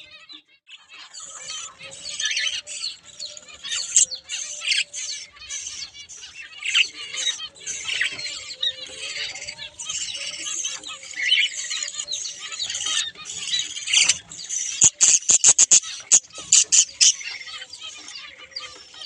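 A flock of budgerigars chattering and warbling continuously, with a quick run of sharp clicks about fifteen seconds in.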